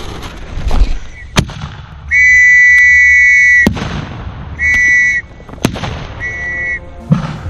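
A whistle blown three times, a long blast of about a second and a half and then two short ones: the signal to go over the top. Sharp firework bangs go off around the blasts.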